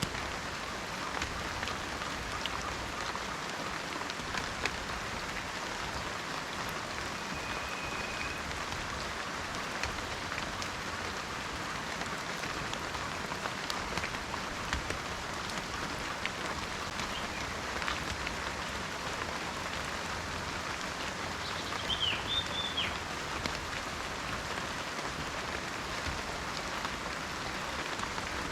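Steady rain falling in a forest, with scattered individual drops pattering. A brief bird call comes about two-thirds of the way through.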